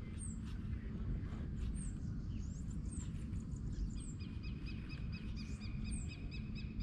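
Wild birds calling over a steady low rumble. A thin, high, falling note repeats about once a second, and from about four seconds in a quick run of short chirps comes at about six a second.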